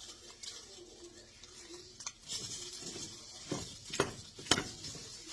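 Eggs sizzling in a frying pan while a utensil stirs and scrapes them, with two sharp knocks of the utensil against the pan about four seconds in.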